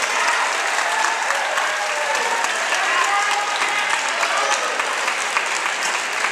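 Crowd applauding in a boxing hall, with scattered voices calling out over the clapping.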